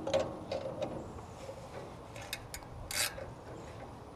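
Hand tools working on a metal motor mount: scattered faint metallic clicks and scraping as a wrench and socket are handled and fitted to the mounting bolt.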